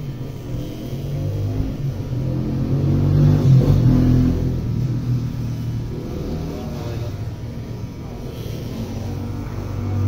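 Electric hair clippers running with a low hum, loudest about three to four seconds in.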